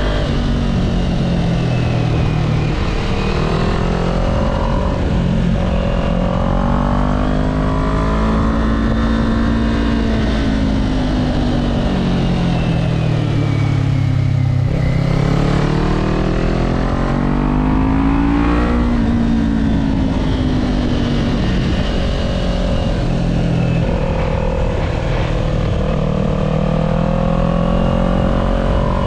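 Kawasaki Z400's parallel-twin engine under way, its note rising and falling with the throttle and gear changes, over a steady rush of wind on the helmet-mounted microphone. About halfway through the engine note sinks low, then climbs steadily for several seconds and drops back.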